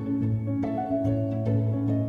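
Background music: plucked-string notes over a sustained low bass line, with the notes changing about every half second.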